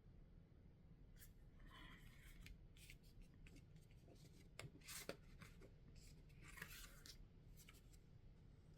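Near silence with faint rustling and a few light clicks of handling noise, louder around the middle.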